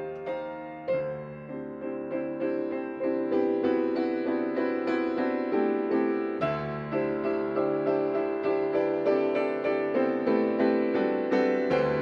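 Solo piano playing an accompaniment part with no voice: a quick, even pattern of notes over a few deep bass notes, getting louder over the first few seconds.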